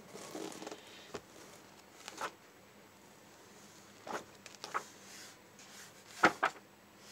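Pages of a paper textbook being flipped and turned by hand: a handful of short papery swishes, the loudest about six seconds in.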